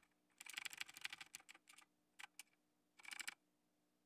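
Computer keyboard keys tapped in a quick run of rapid strokes about half a second in, then two single taps, and another short quick run near three seconds. These are arrow-key presses stepping the cursor up through a menu.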